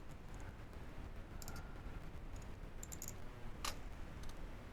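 A few faint, scattered computer keyboard keystrokes over a low steady room hum, as a command is typed in to run a build script.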